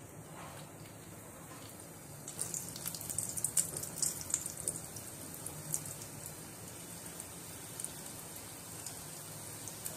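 Samosas deep-frying in hot oil: a faint steady hiss, then many small crackling pops from about two seconds in as more samosas go into the oil, busiest for a couple of seconds and then settling.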